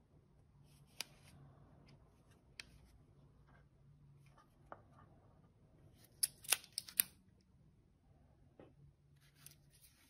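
Handling noise from a video doorbell in its plastic sleeve and packaging: scattered light plastic clicks and ticks, with a quick cluster of four or five louder clicks just past the middle.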